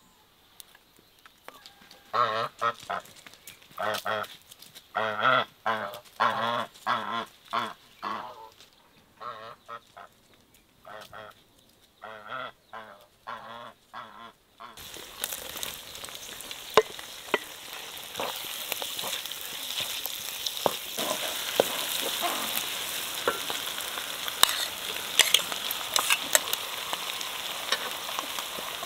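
Farmyard waterfowl calling in a run of short repeated calls for about the first half. Then a pan of peppers and tomatoes sizzles steadily with scattered crackles, as diced potatoes are added and stirred with a wooden spatula.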